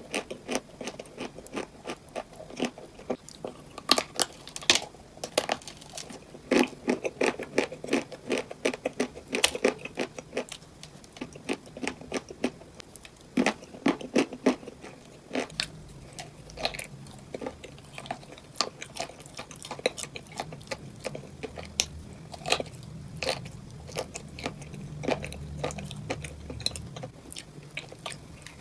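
Close-miked crunchy eating: bites and chewing of cupcakes filled with crunchy items, with rapid, irregular crackling crunches throughout. A low hum sits underneath through much of the second half.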